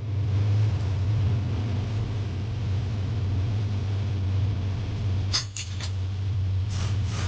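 A steady low hum runs under the repair bench, with a few short scraping strokes about five seconds in and again near the end.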